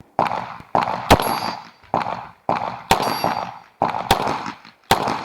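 Uzi Pro 9 mm pistol fired in a string of about ten single shots, roughly one every half second, each with a trailing echo. After some shots there is a brief metallic ring, as of steel targets being hit.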